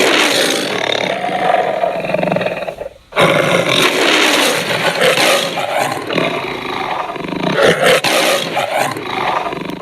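Designed dragon roar sound effect, layered from lion, tiger and monster roars. One roar fades out about three seconds in, and a second, longer roar follows at once.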